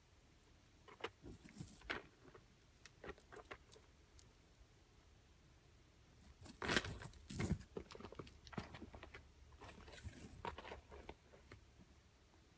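Gold-tone metal chain straps of Chanel and Saint Laurent wallet-on-chain bags jangling and clinking as they are handled, in three bouts, the loudest about seven seconds in, with soft handling knocks.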